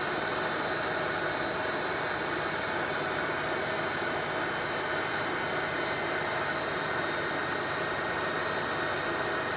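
Bridgeport vertical milling machine running, its spindle and cutter taking a cut through metal: a steady machine whine with several held tones.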